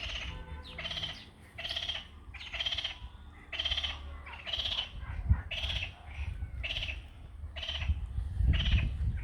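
An animal's rasping call, about half a second long, repeated about once a second, roughly ten times, over a low rumble.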